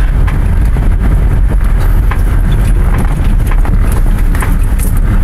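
Car cabin noise while driving: a steady low road and engine rumble, with scattered light knocks and rattles.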